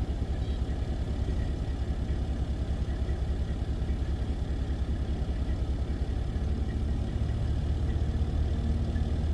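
A large engine running steadily at a low rumble, with a fast even pulse, growing a little louder about two-thirds of the way through.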